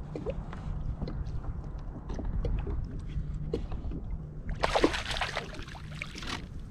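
Fishing reel being cranked in small clicks over a steady low rumble of water and wind, then a loud splash about four and a half seconds in, lasting under two seconds, as the hooked fish thrashes at the surface beside the kayak.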